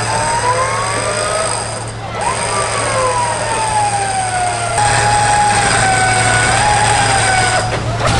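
Off-road Jeep's engine and drivetrain pulling in low gear as it is hauled through a river on a tow strap, with a whining note that rises and falls slowly. It grows louder and rougher about five seconds in as the vehicle drives forward through the water.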